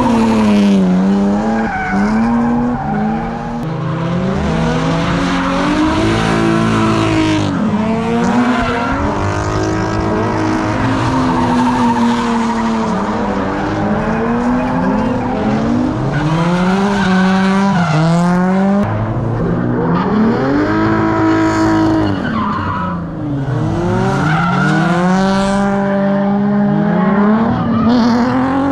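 Drift cars sliding on the skidpad: engines revving hard and dropping back again and again, over continuous tyre skidding and squeal.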